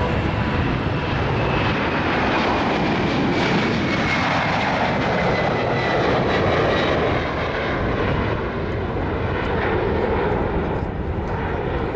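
Boeing KC-767 tanker's two turbofan engines at take-off thrust as it lifts off and climbs out: a loud, steady jet noise with a whine that falls in pitch over the first several seconds as the aircraft passes.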